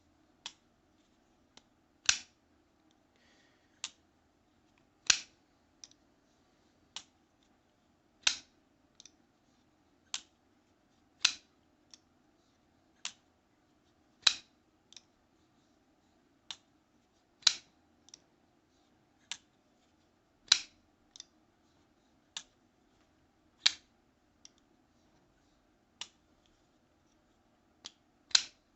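Damn Designs Invictus flipper knife being flicked open and shut over and over. Loud, sharp snaps come about every three seconds, with a softer click between each pair, as the blade is flipped out on its flipper tab and closed again.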